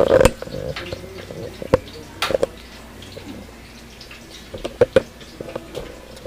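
Metal spoon scraping and clinking against a frying pan and a plate as cooked food is stirred and dished out: a handful of sharp knocks, the loudest right at the start.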